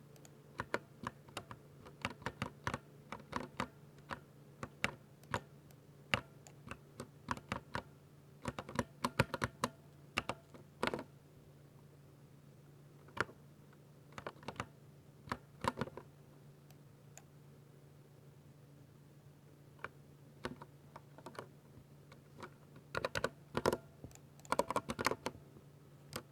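Typing on a 60% Ducky mechanical keyboard with silver switches: sharp key clicks come in uneven bursts, with short pauses between runs. A faint steady low hum lies underneath.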